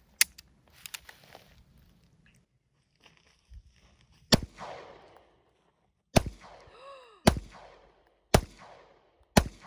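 A semi-automatic pistol fired five times, the first shot about four seconds in and then about one shot a second, each with a trailing echo; the last shot empties the magazine and the slide locks open. A couple of sharp clicks sound near the start, and a brief whine follows the second shot.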